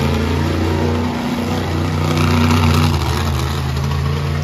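Monster truck's engine running hard and revving up and down as the truck drives across the dirt arena, dipping briefly about a second in and loudest a little past the middle.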